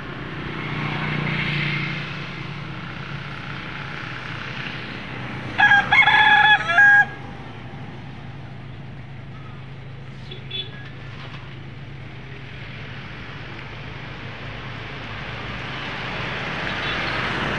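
A rooster crows once, loud and lasting about a second and a half, starting around five and a half seconds in, over steady street noise from passing traffic that swells near the start and again near the end.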